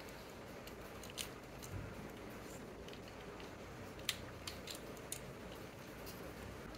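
Plastic parts of a Transformers Legacy Voyager Springer toy clicking as they are handled and pressed together, with a few sharp clicks; the loudest is about four seconds in.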